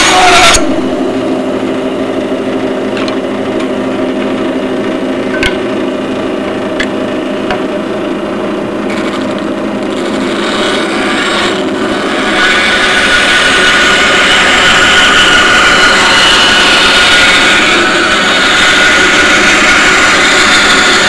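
Ridgid power tool motor running steadily, with a few sharp clicks; about twelve seconds in, a louder, rougher cutting noise joins it as material is worked.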